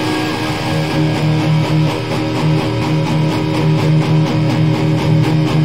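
Recorded hardcore music: distorted electric guitars playing a repeated, pulsing chord riff.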